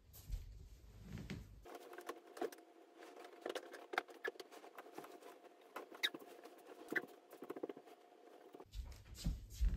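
Bedding rustling as blankets and a duvet are pulled and smoothed across a bed, with many small scattered scratches and taps.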